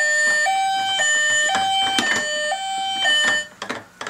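Battery-powered Pororo toy ambulance sounding its electronic two-tone siren, switching between a high and a low note about every half second, with a few plastic clicks as it is handled. The siren cuts off about three and a half seconds in, leaving a few light knocks.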